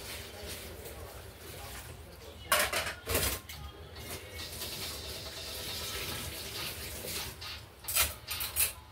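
Cutlery and dishes clattering. A few sharp clinks come about two and a half to three seconds in, and another quick cluster near the end, over a low steady hum.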